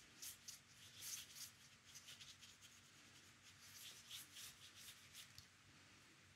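Paintbrush bristles brushing across watercolour paper: a quick series of faint, short strokes that stops about five seconds in.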